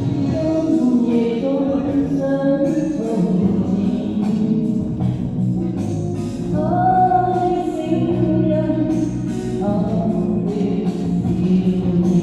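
A solo singer sings a Chinese pop ballad over a karaoke backing track, the voice carrying a KTV-style echo effect. Several sustained, held notes run over the steady accompaniment.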